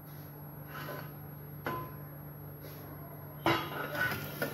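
Kitchen utensils knocking on a steel cooking pot as raisins and pistachio powder are tipped in from a steel plate and a spoon stirs them into roasted vermicelli: a light knock with a short ring, then a louder knock about three and a half seconds in, followed by about a second of clinking and scraping.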